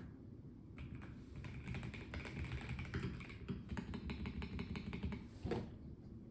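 Typing on a Melgeek Mojo84 plastic-case mechanical keyboard: a quick run of keystrokes starts about a second in and stops with one louder key press about five and a half seconds in.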